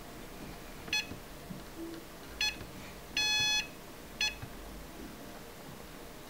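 A Humminbird 571 HD DI fish finder beeping as its keys are pressed to page through display views. There are four electronic beeps spread over a few seconds, and the third is longer and louder than the others.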